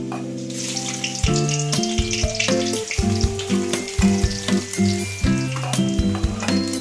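Food frying in hot oil in a pan, a steady sizzle that sets in about half a second in, under background acoustic guitar music.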